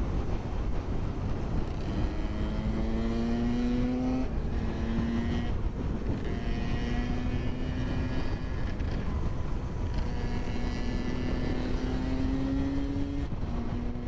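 Riding the Zero FXS electric motorcycle at speed: wind rushes steadily over the helmet microphone, under a whine that rises slowly in pitch and drops back sharply a couple of times.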